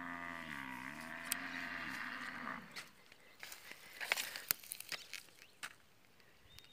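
A cow mooing: one long low call of about two and a half seconds that dips in pitch and rises again. Then a few scattered clicks and taps.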